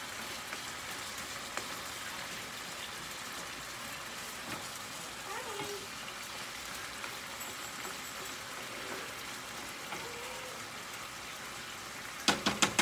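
Ground beef browning in a frying pan, a steady sizzling hiss, with a few quick clicks of the spatula against the pan near the end.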